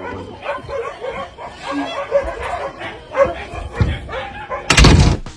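A dog barking and yipping in short repeated bursts, with a loud burst of noise lasting about half a second near the end.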